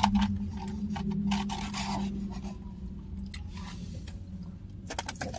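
Mouth sounds of chewing a burger close to the microphone, with short irregular scrapes and rustles of paper fast-food wrappers, over a steady low hum.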